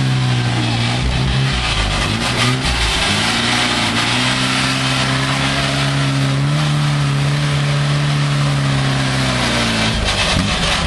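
A small truck's engine revving hard and held at high revs. It dips briefly about two seconds in, climbs a little about six seconds in, and drops off near the end. The wheels spin in the dry leaves and dirt, and the truck is wrapped in thick smoke.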